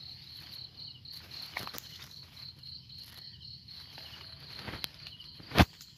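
Insects chirping in a steady high pulsing trill, about four pulses a second, over footsteps and rustling through undergrowth, with one sharp knock a little over five seconds in.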